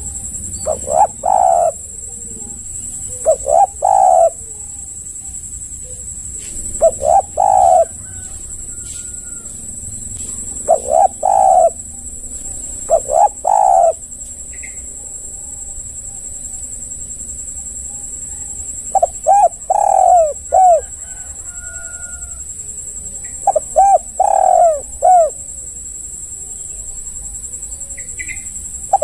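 Spotted dove (tekukur) cooing: short phrases of two or three coos, repeated every few seconds, with longer gaps in the middle. A steady high hiss runs behind.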